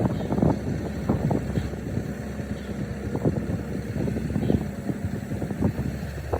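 A motor running, with frequent irregular knocks and clatters over it.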